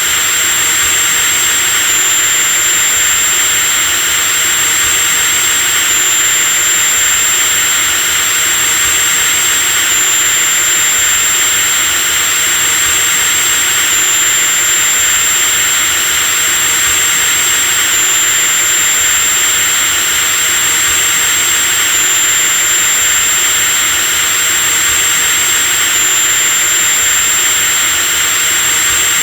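Power drill running continuously at full speed, a steady high-pitched motor whine over a hiss, with a slight step in pitch about every four seconds.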